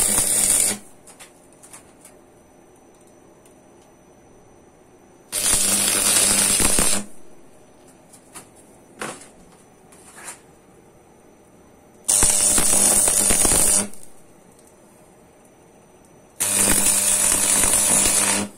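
Electric arc welding in short tack welds: four bursts of crackling arc, each lasting one and a half to two seconds, the first already under way and ending about a second in. A low hum runs under each burst, and a few faint clicks fall in the pauses between welds.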